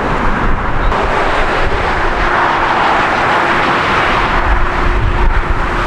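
Jet engine noise from a Boeing 777-300ER on final approach: its GE90 engines make a steady rushing noise with a faint steady hum under it. About a second in, this takes over from a 777 rolling out on a wet runway. Wind gusts buffet the microphone near the end.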